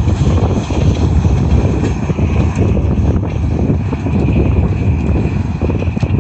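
Wind buffeting the microphone: a loud, uneven low rumble, with a faint steady high tone running under it.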